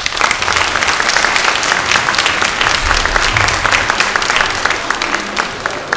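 Audience applauding, many hands clapping; it breaks out at once and begins to die down near the end.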